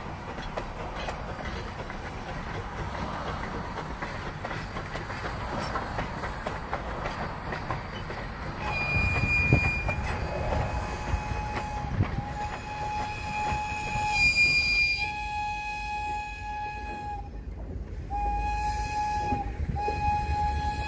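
Passenger coaches rolling by on rough track, then, about nine seconds in, the Polson Logging Co. No. 2 steam locomotive's whistle blows a series of long blasts broken by short gaps, one of them short.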